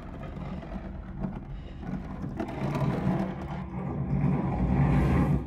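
Film soundtrack: a low rushing rumble that swells steadily louder and cuts off suddenly at the end.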